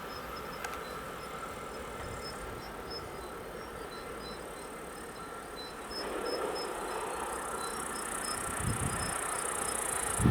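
Railway train running past a level crossing, a steady rumble with rail hiss that grows louder in the second half, with crickets chirping in short repeated bursts over it.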